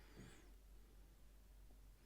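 Near silence: room tone, with one faint, brief sound just after the start.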